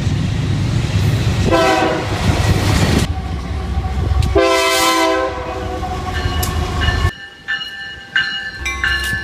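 Diesel freight locomotives rumbling past, sounding a chorded air horn twice, once for about a second and a half and again briefly a few seconds later. After a sudden cut near the end, the rumble drops away to a quieter sound with thin, high, steady whining tones.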